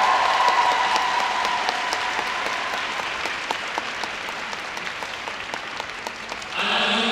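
Arena crowd applauding, with many individual hand claps, as the last held note of the program music fades out over the first few seconds. Near the end, a louder pitched sound starts over the loudspeakers.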